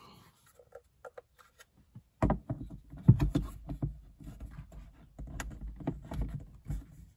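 A replacement rearview mirror being pushed and twisted onto its windshield mount. A few small clicks come first, then from about two seconds in a string of plastic knocks, bumps and rubbing, with the sharpest knock about three seconds in.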